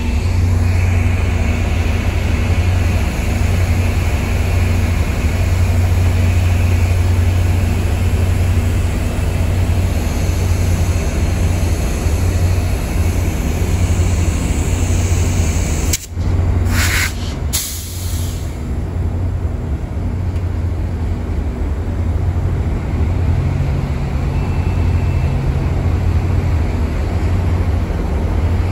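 MPI MP36PH-3C diesel locomotives of a FrontRunner commuter train running while stopped, a steady low rumble. About two-thirds of the way through there are two short, loud hisses of compressed air released from the train's air brakes.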